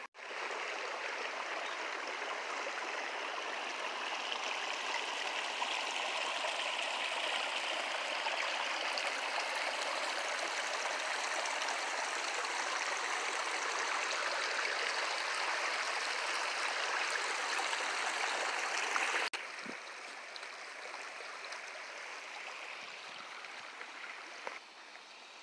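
Shallow rocky creek flowing over stones: a steady rush of running water. About two-thirds of the way through it drops suddenly to a fainter rush.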